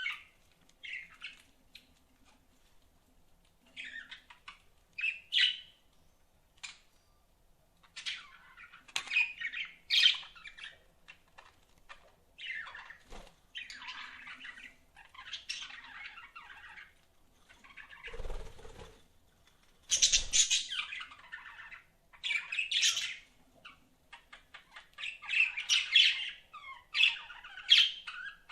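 Pet budgerigars chirping and chattering in irregular bursts, sparse at first and growing busier and more continuous in the second half, with a brief low rustle about two-thirds of the way through.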